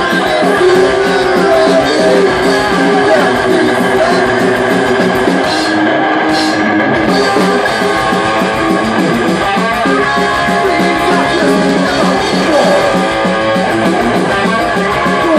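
Live rock band playing: electric guitars, bass guitar and drums, loud and steady, with no singing.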